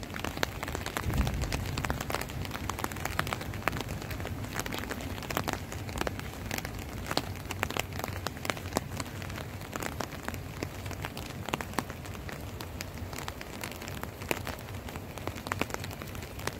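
Steady rain falling, with many individual drops ticking sharply and irregularly close to the microphone. A brief low rumble comes about a second in.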